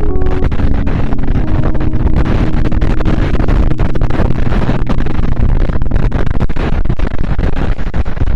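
Loud wind rushing over the microphone of a camera moving at speed, with a faint steady vehicle engine hum underneath, most noticeable in the first seconds.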